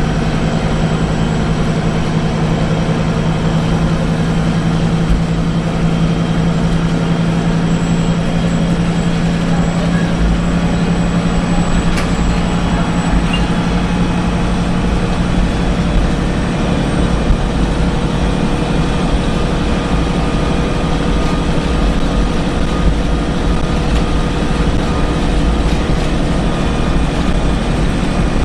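Saloon of a VDL SB200 single-decker bus with a Wright Pulsar 2 body under way: steady engine drone and road rumble, with a strong low hum that fades a little over halfway through. One sharp tick about halfway through.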